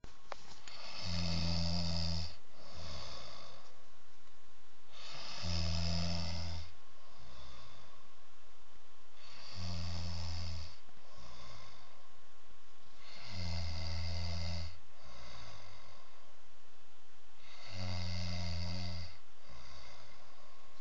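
A person snoring heavily in a steady rhythm: five snores about four seconds apart, each a loud low snore of about a second followed by a shorter, softer one.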